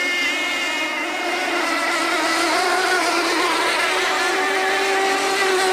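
Several radio-controlled tunnel-hull model race boats running together, their small engines giving a high whine in several pitches at once. The pitches waver up and down as the boats race.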